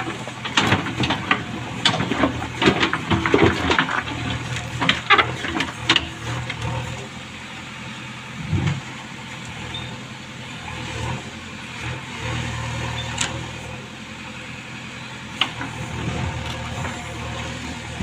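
JCB 3DX backhoe loader's diesel engine running under load while its backhoe bucket digs in rocky ground. Stones clatter and knock against the bucket in a dense run of sharp knocks over the first six seconds, then only a few scattered knocks over the steady engine hum.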